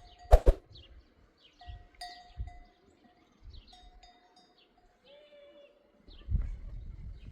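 Livestock bells ringing now and then, each a short clear tone that fades, with a sharp knock about half a second in. A low rumbling noise comes in near the end.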